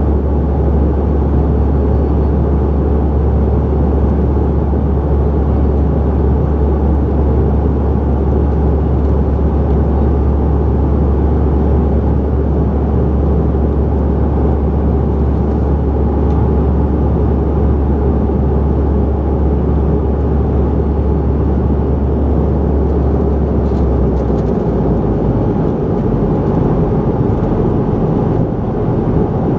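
Steady cabin noise of a CRJ700 regional jet in flight: the drone of its engines and the rush of airflow, heaviest in the low end. A deep hum within it drops a little about 24 seconds in.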